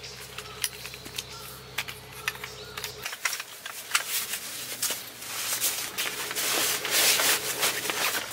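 Rustling and scraping with many small clicks and knocks, as of things being handled, growing louder past the middle; a low steady hum underneath stops abruptly about three seconds in.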